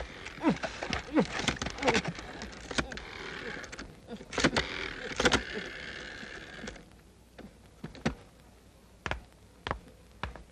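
Animated-film sound effects: a rapid run of clicks, creaks and short squeaks, thinning after about seven seconds to a few separate clicks.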